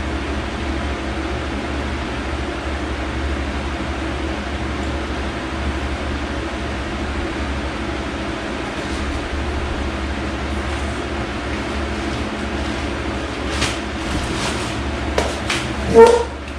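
Steady low mechanical hum. A few light clicks come near the end, then one louder knock just before it ends.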